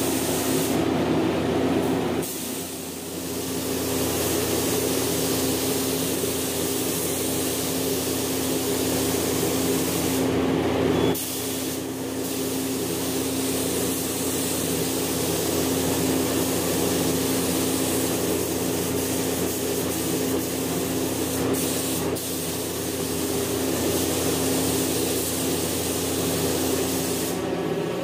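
Air-fed gravity-feed paint spray gun hissing steadily as it sprays paint, pausing briefly a few times. A steady low hum runs underneath.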